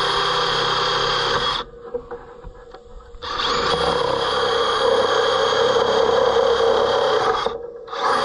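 DeWalt cordless drill running as a 5/16-inch bit bores through a wooden board. It stops about a second and a half in, starts again about three seconds in and runs steadily for about four more seconds before stopping.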